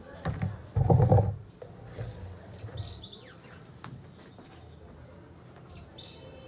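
Small birds chirping with a few short high calls, after a brief louder rustling thump about a second in.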